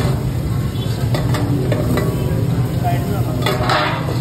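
Meat pieces sizzling on a flat steel griddle while a wide metal blade scrapes and turns them. There are sharp metal clicks and a louder scrape about three and a half seconds in, over a steady low hum.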